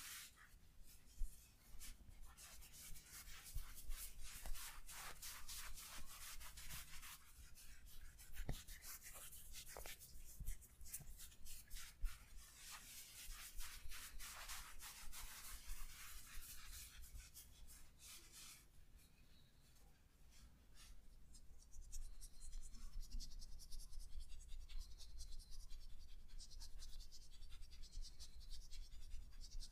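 Hands rubbing and stroking over skin in a body massage: a steady run of soft, rapid brushing friction strokes that eases off for a couple of seconds about two-thirds of the way in, then picks up again.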